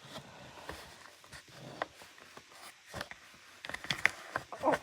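Scattered light clicks, taps and rustles of hands handling plastic vacuum-cleaner parts and the packed dirt pulled from them, with a quicker cluster of clicks near the end.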